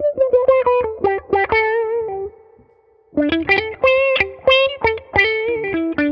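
Electric guitar played through a Mu-Tron Micro-Tron IV envelope filter: runs of picked single notes, each note given a quacking auto-wah sweep by the filter. There is one phrase, a pause of about a second, then a second phrase.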